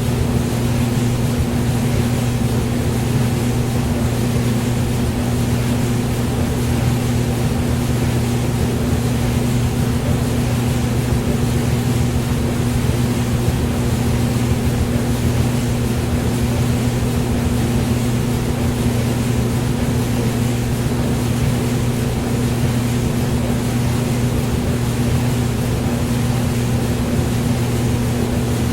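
Hair dryer running steadily: an even rush of blown air over a low, constant motor hum.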